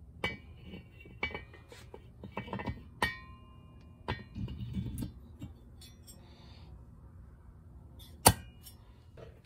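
Scattered metallic clinks and taps as the cylinder head of a Yamaha DT175 two-stroke engine is settled down over the cylinder studs. Some clinks ring briefly, and there is one sharp click near the end.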